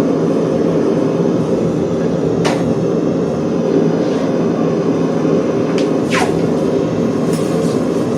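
Workshop machinery running steadily with a hum, and a couple of short sounds that drop in pitch, at about two and a half and six seconds in.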